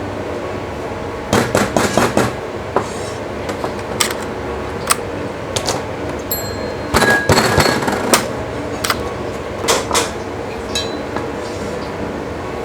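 Cashew nuts being crushed: irregular sharp knocks and cracks, some coming in quick clusters, loudest about seven seconds in.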